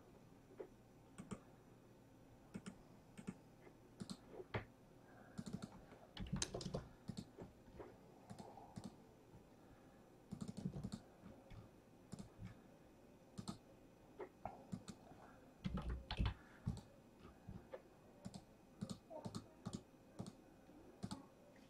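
Faint, irregular typing and clicking on a computer keyboard, with a few duller thumps about six, ten and sixteen seconds in.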